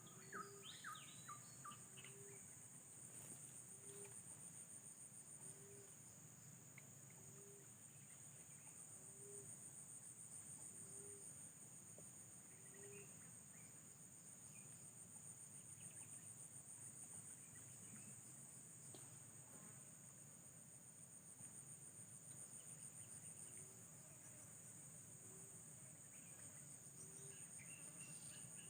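Faint, steady high-pitched insect chorus with a fast pulsing trill, like crickets. A short low note repeats about once a second through the first third and returns near the end.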